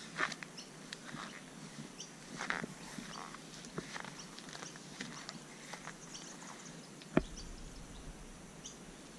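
Quiet outdoor ambience with scattered short bird chirps and small clicks, and one sharp knock about seven seconds in.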